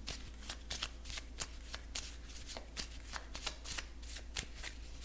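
A deck of Lenormand cards being shuffled by hand: a quick, irregular run of light papery clicks, several a second.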